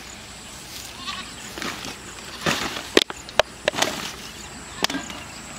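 A goat bleats briefly about a second in. Then comes close handling noise: rustling and a few sharp clicks, the loudest near the middle and another near the end.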